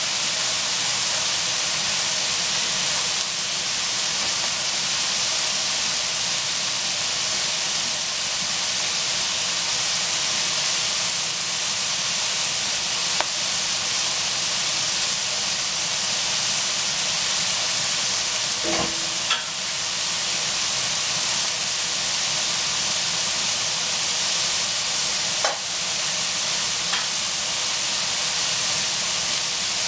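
Shredded cabbage, carrot and greens sizzling steadily in hot oil in a frying pan, with a few brief clicks.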